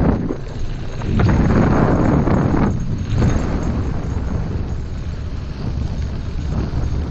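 Wind buffeting the microphone over a low rumble of wheels rolling fast on a packed dirt trail, rising and falling in strength.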